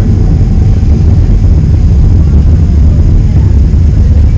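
Boeing 767-300ER cabin noise while taxiing: a steady, loud low rumble of the engines and rolling gear, heard from a window seat over the wing.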